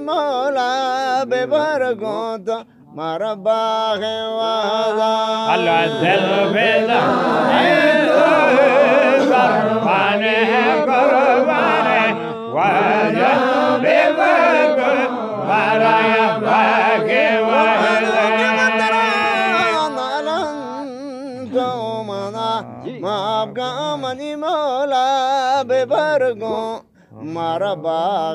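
Men singing a Baloch Zikri chogan chant together, the voices wavering in long melodic lines over a steady held tone. The singing drops out briefly a few seconds in and again near the end.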